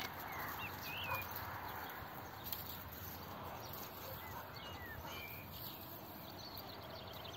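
Faint short high chirps of small birds scattered over a steady outdoor background hiss, with a few soft ticks.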